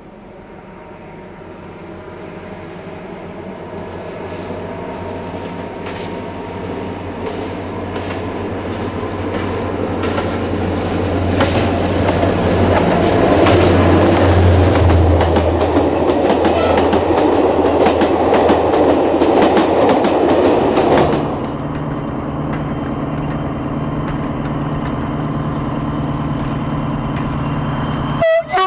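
SNCF diesel locomotive hauling passenger coaches, its engine growing steadily louder as it approaches, then the coaches passing close with a rapid clickety-clack of wheels over the rail joints. About 21 s in the sound cuts to a quieter, steady diesel engine hum of a train coming across a viaduct.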